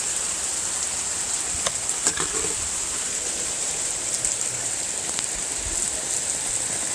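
Heavy downpour of rain: a steady hiss of pouring rain, with a few sharp taps of drops striking close by.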